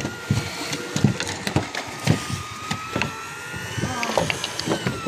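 Irregular knocks and thumps as a hooked fish is hauled from the water and swung aboard a fishing boat, over a steady thin whine.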